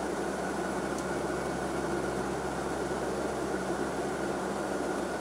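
Steady drone of an HC-130 Hercules's four turboprop engines heard inside the flight deck, with a constant high whine over the deep, even rumble.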